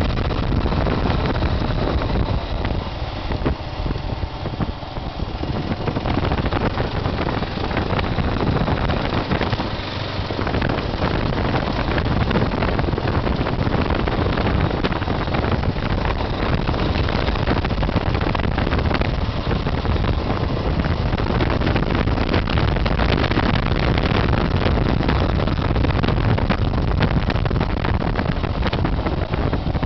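Kawasaki KLR650 single-cylinder four-stroke dual-sport motorcycle running at road speed on gravel, heard from the seat with wind buffeting the microphone. The level dips briefly a few seconds in and again about ten seconds in.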